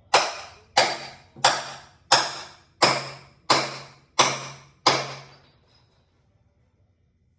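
Eight steady hammer blows on a steel pry bar, about one every two-thirds of a second, each ringing briefly, then stopping. The bar is being driven under a wall's bottom plate to work its concrete nails loose.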